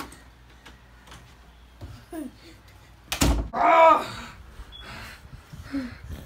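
A loud thump about three seconds in, followed at once by a short high-pitched cry, amid faint shuffling and small vocal noises.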